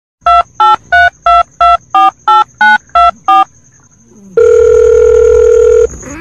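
Touch-tone telephone dialing: ten short keypad beeps, about three a second, then after a short pause one long ringing tone on the line lasting about a second and a half.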